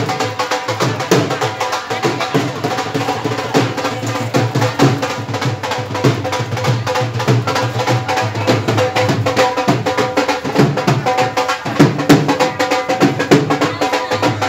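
Loud festive music with fast, steady drumming, with crowd voices underneath.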